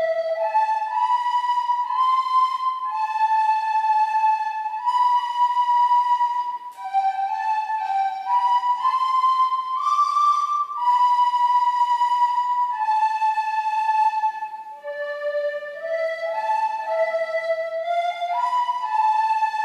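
A group of soprano recorders playing a slow melody together, long held notes moving up and down in small steps, with two short breaks between phrases.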